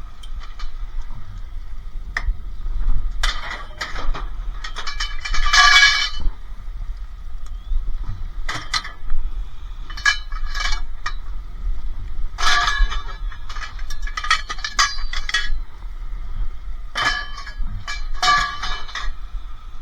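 Scrap metal being handled and loaded: a string of irregular metallic clanks and clinks with a ringing tail, the loudest about six seconds in.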